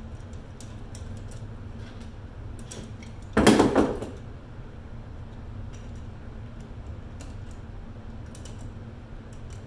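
Small scattered clicks and taps of screws and metal outlet parts being handled, with one louder noisy clatter about three and a half seconds in, lasting under a second. A steady low hum runs underneath.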